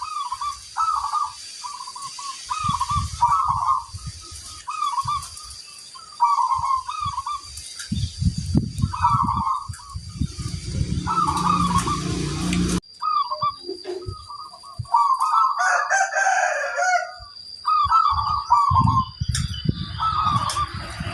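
Zebra doves (perkutut) cooing, many short rolling phrases repeated one after another, some overlapping as birds answer each other. About fifteen seconds in, a louder, longer call from another bird stands out, and low thumps come and go in the first half.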